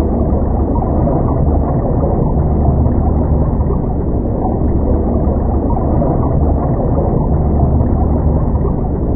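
Muffled, steady low rush and rumble of heavy surf, with the higher sounds cut away.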